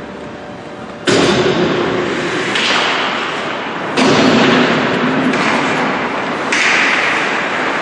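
Sounds of ice hockey play in an indoor rink: three sudden thuds, about a second in, about four seconds in and near the end, each followed by a second or two of scraping noise that echoes in the arena.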